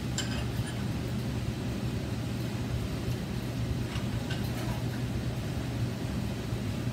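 Light metallic clicks and clinks from steel stock being positioned and clamped in the vise of an abrasive chop saw, once just after the start and again about four seconds in, over a steady low hum.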